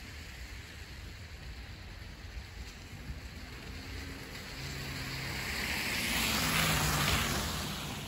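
A motor vehicle passing on the street over a steady background of traffic. Its engine hum and tyre hiss swell to a peak about six to seven seconds in, then start to fade.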